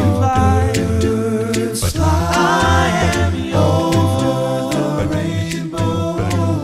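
Background music: a cappella singing, several voices in harmony over a low sung bass line, with a steady beat of sharp clicks.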